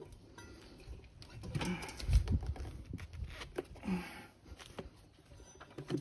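Tire spoons prying a scooter tire's rubber bead over the alloy rim: a thump about two seconds in, short rubber squeaks near the start and again about four seconds in, and light knocks of the levers. The bead lube is drying up.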